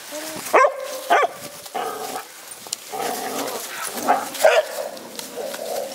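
Dogs barking in play while they tussle over a stick: a string of short barks, the loudest about half a second in, a second in, and four and a half seconds in, with quieter barks between them.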